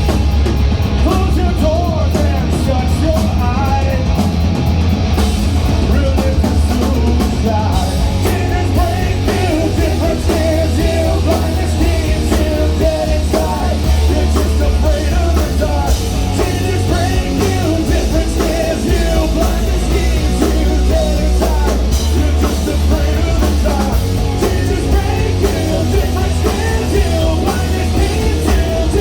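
Live rock band playing loudly, with a sung vocal line over heavy, booming bass.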